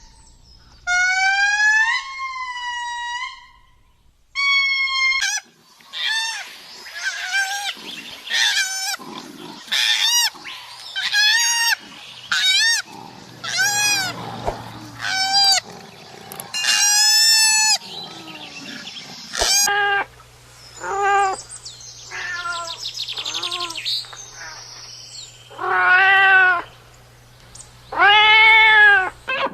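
Cats meowing: a long run of separate meows, each rising and falling in pitch. The meows are short and come quickly in the middle, and near the end they are longer and lower.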